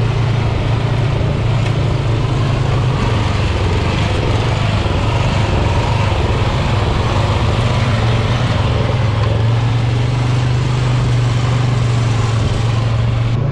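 Engines of a Toro riding lawn mower and the off-road vehicle beside it running steadily at speed on a gravel track: a continuous low engine drone with wind and tyre rush over it.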